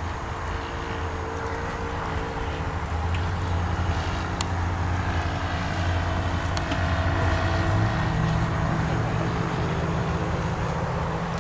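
A motor engine running steadily with a low hum, its pitch stepping up about eight seconds in as it speeds up.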